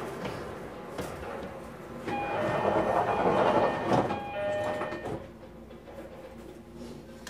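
Inside a JR Kyushu 305 series electric train car standing at a station, with a low steady hum. About two seconds in, a louder noise with a few short steady tones rises for about three seconds and then stops: the doors closing before departure.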